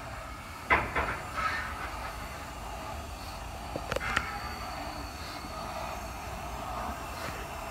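Steam locomotive rolling slowly past with its passenger coaches: a steady rumble and hiss, with a few sharp metallic clanks about a second in and again around four seconds in.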